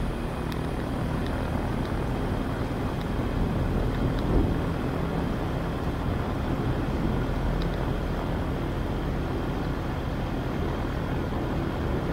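AutoGyro MTOSport gyroplane's engine running steadily at idle, an even low drone, while the aircraft holds still before take-off.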